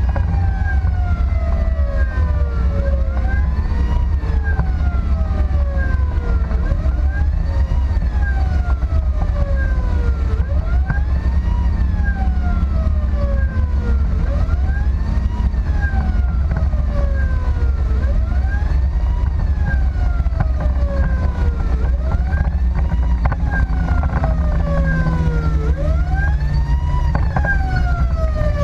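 Emergency-response siren wailing, its pitch rising and then falling in a repeating cycle about every four seconds. It is heard from inside the moving vehicle over a steady low engine and road rumble.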